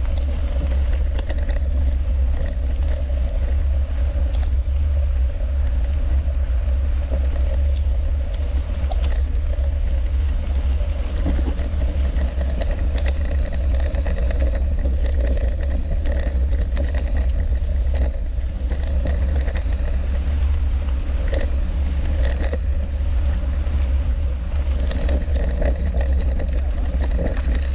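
Steady low rumble picked up by an action camera mounted on a mountain bike rolling over a wet gravel track, with scattered clicks and knocks as the bike goes over the bumps.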